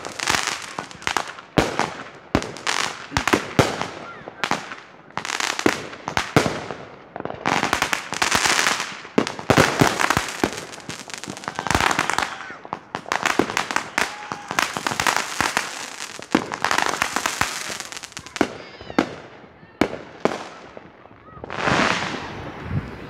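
Consumer fireworks going off close by: a rapid, irregular run of sharp bangs and crackles, with stretches of hissing as shells and sparks shoot up.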